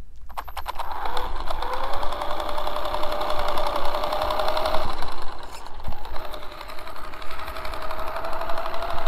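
Traxxas Stampede 4x4 electric RC truck driving, its motor and drivetrain whining up in pitch and then holding, with a rapid clicking grind running through it. The whine eases about five seconds in and picks up again. The grinding comes from a chewed-up spur gear with teeth missing.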